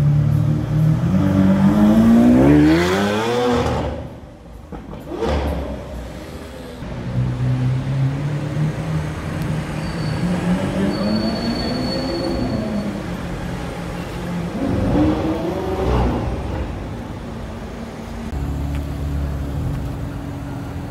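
A Lamborghini's engine revving and accelerating away, its note climbing in pitch for about three seconds, followed by further cars accelerating past in traffic with rising and falling engine notes. Near the end, a BMW M4's twin-turbo inline-six idles steadily.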